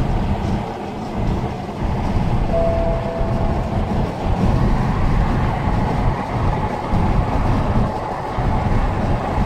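Steady road noise in a moving car's cabin: tyres, wind and engine running at highway speed. A short faint tone sounds about two and a half seconds in.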